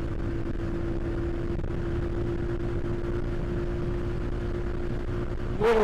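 Royal Enfield Himalayan's single-cylinder engine running steadily at about 75–80 km/h, heard through a helmet microphone as an even, steady drone over a low wind rumble.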